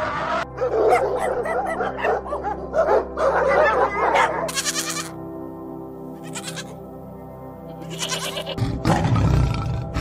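Goats bleating repeatedly, a run of wavering calls over background music. Near the end a deep, rough growl sets in, from a tiger.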